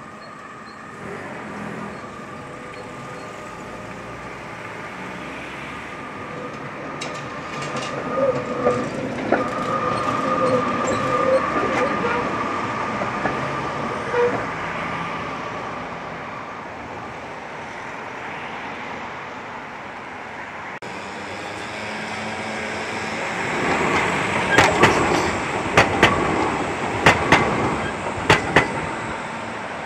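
Tatra T3 trams running on street track, with a steady whine through the first two-thirds. Near the end comes a quick run of sharp clacks from tram wheels on the rails, over city traffic noise.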